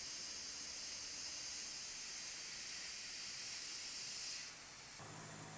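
Steady hiss of a mist coolant nozzle spraying at a chamfer mill cutting copper on a CNC mill. The hiss stops a little after four seconds, and a low steady hum comes in near the end.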